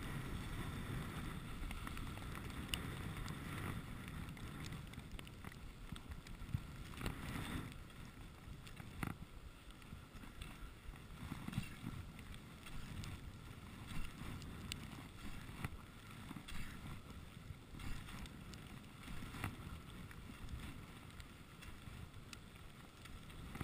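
Rossignol skis sliding and scraping over groomed snow, with wind rumbling on the microphone and scattered sharp clicks every few seconds.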